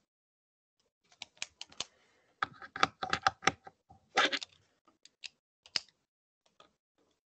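Computer keyboard typing: a quick run of key clicks, densest in the middle, thinning to a few single taps near the end.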